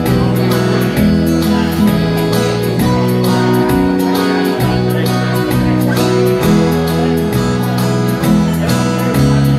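Instrumental break in a slow country ballad: two acoustic guitars strummed in an even rhythm, with a steady bass line underneath.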